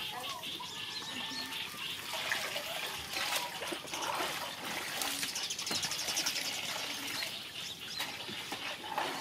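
Water trickling and splashing as plastic baskets are dipped into a concrete tank and lifted out dripping, with birds chirping.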